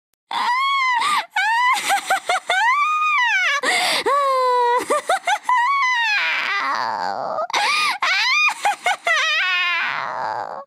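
Witch's cackle sound effect: a very high-pitched voice laughing, with long notes that slide up and down between quick runs of short cackles.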